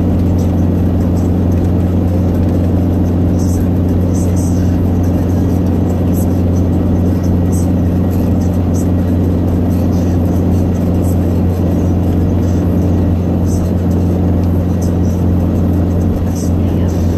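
Car cruising at highway speed, heard from inside the cabin: a steady, unchanging drone of engine and road noise.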